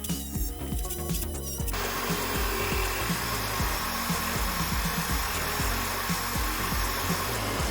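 Background music with a steady beat; about two seconds in, a steady whirring, rushing noise joins it: a homemade lathe spinning and a tool cutting into very hard, dense wood.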